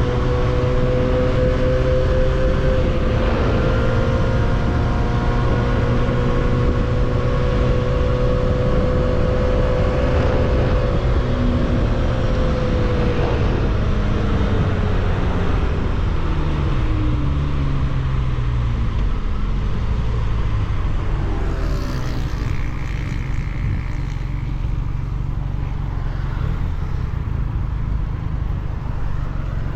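300cc motorcycle engine with an aftermarket exhaust running at steady revs, then its note falls over several seconds as the bike slows, and it settles into a lower, steady run. Steady wind and road rush sits underneath.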